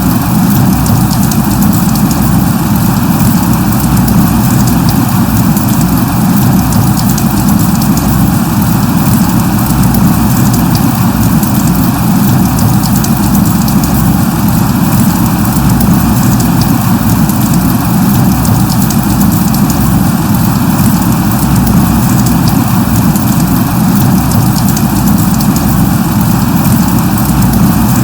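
Light rain, a drizzle, falling steadily as a dense, even patter.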